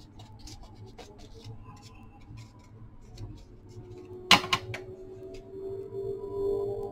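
Light paper handling on a craft mat, small ticks and rustles as a paper piece is folded, with a sharp clatter about four seconds in. Soft background music then fades in and grows under scissors starting to snip paper.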